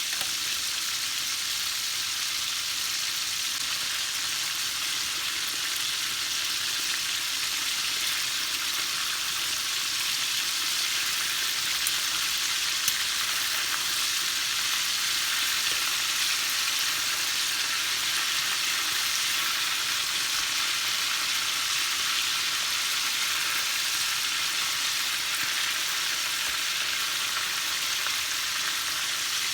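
Breaded chicken drumsticks deep-frying in hot oil on high heat: a steady, even sizzle with a faint click about thirteen seconds in.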